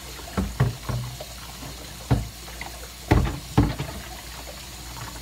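Baby opossum chewing its food close to the microphone: a series of irregular chewing smacks, the last about three and a half seconds in.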